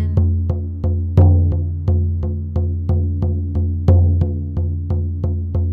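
Hand-held frame drum struck with a beater in a steady, even shamanic journey beat of about three strokes a second, its low boom ringing on between strokes.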